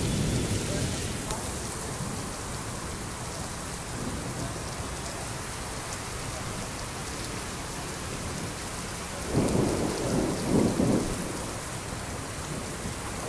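Heavy rain pouring steadily, with a short louder stretch about nine to eleven seconds in.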